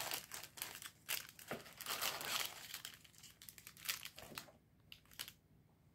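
Tissue paper, paper shred and cellophane wrapping crinkling and rustling as gift items are lifted out of a packed box. It is dense for the first few seconds, then breaks into a few separate rustles and grows quiet near the end.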